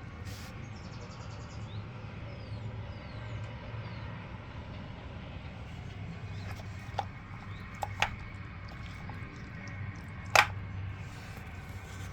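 Washing machine running with a steady low hum, with a few sharp clicks or knocks, the loudest about ten seconds in.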